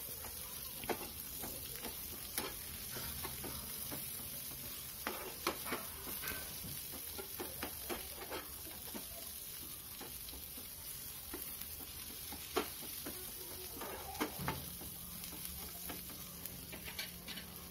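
Onion, green chillies, garlic, ginger and whole spices sautéing in oil in a stainless steel pan: a steady sizzle, with irregular clicks and scrapes of a metal spatula against the pan as they are stirred.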